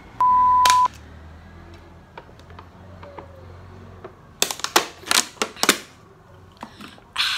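A loud, steady single-pitched beep lasting under a second near the start. Later a thin plastic water bottle crackles in several sharp clicks as it is squeezed while someone drinks from it, and a short breathy noise follows near the end.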